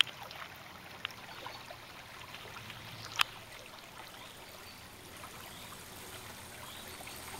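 Faint running water, a steady trickling hiss, with a couple of sharp clicks, the loudest about three seconds in.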